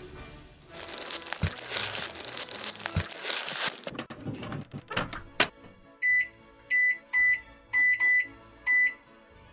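Digital oven control panel beeping six times, short high beeps in quick succession, as the temperature and timer are set. Before the beeps come a few seconds of rustling, crinkly noise and a few sharp clicks.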